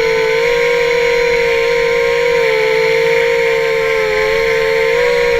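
Mini hexacopter's motors and propellers whining at a steady pitch that wavers slightly up and down with the throttle.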